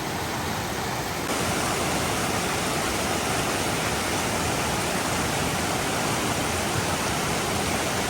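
Flood-swollen river rushing over rocks in a steady, loud roar of water. It gets a little louder about a second in.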